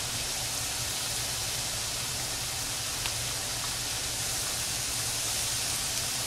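Steaks sizzling steadily on a hot stovetop grill pan, a constant hiss, with the range hood fan humming underneath; a small tick of the wooden tongs about three seconds in.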